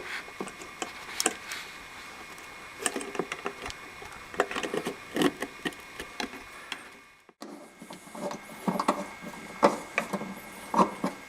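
Irregular small clicks and knocks of wire connectors being pushed onto the terminals of a new GE refrigerator control board, with plastic handling sounds.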